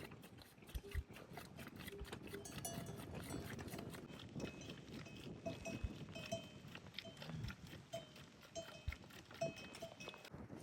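Bells worn by livestock, clinking irregularly as the animals move, with one short low animal grunt about seven seconds in.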